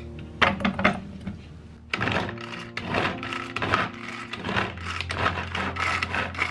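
Hand-operated plastic food chopper's spinning blades chopping carrot pieces, a clattering rattle of carrot against the plastic bowl in repeated strokes about twice a second as the carrot is cut finer. Soft background music underneath.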